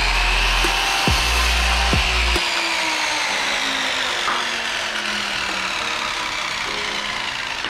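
Power miter saw cutting through a baseboard trim board, its high whine then sliding slowly down in pitch as the blade spins down.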